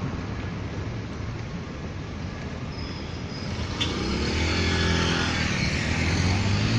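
Street traffic: cars running past, with one vehicle's engine passing close from about four seconds in, its pitch bending as it goes by.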